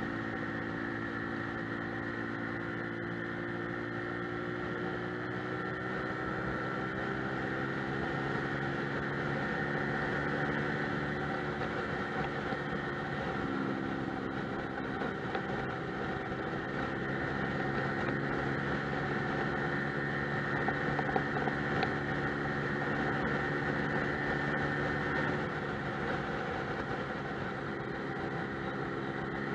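Lexmoto Milano scooter's engine running at cruising speed under wind and road noise. Its pitch rises slowly, dips about halfway through, then holds steady.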